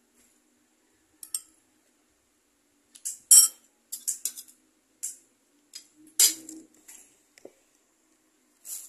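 Metal spoon and fork clinking and scraping against a plate while eating, in a scatter of short sharp clinks, the loudest about three and six seconds in.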